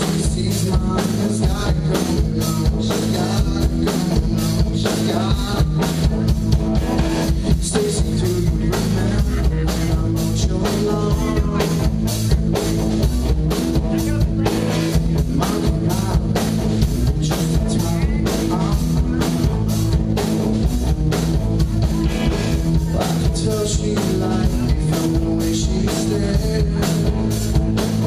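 Live rock band playing, with a drum kit keeping a steady beat under guitar.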